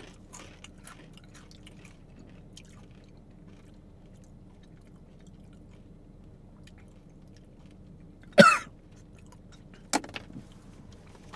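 Faint crunching of Paqui ghost pepper chips being chewed over a steady low hum. About eight seconds in there is one short, loud sound from a throat, and a sharp click follows near the end.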